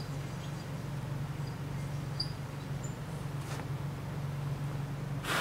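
Hand tap turned in a tap wrench, chasing a threaded hole in a painted, welded steel motor carrier to clear paint and weld spatter: faint small squeaks and ticks over a steady low hum, with a short scrape near the end.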